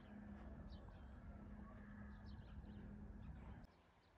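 Near silence: faint bird chirps over a low steady hum, which stops abruptly near the end.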